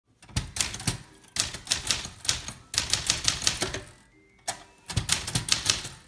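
Keys of a 1973 Smith Corona Sterling manual portable typewriter being typed: quick runs of sharp clacks, broken by short pauses between words.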